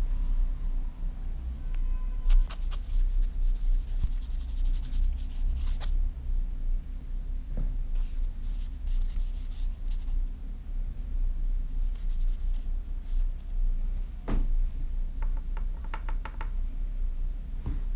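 Wet watercolour brush rubbing and scratching across paper in groups of strokes as a wash is laid down, over a steady low hum. Near the end comes a quick run of light ticks.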